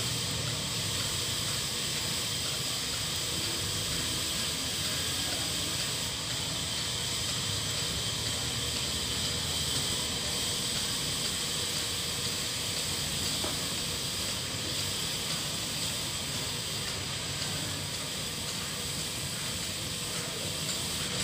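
Steady high-pitched hiss that does not change.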